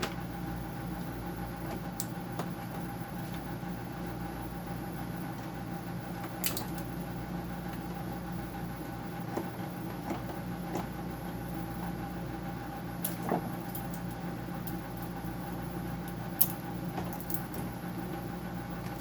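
A steady mechanical hum with several fixed tones runs throughout. A few light clicks and knocks from handling the parts of a dehumidifier being taken apart sound over it, the sharpest about 13 and 16 seconds in.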